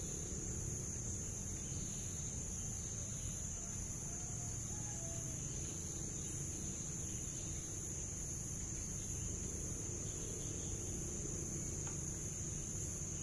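Steady high-pitched chorus of insects droning without a break, over a faint low rumble.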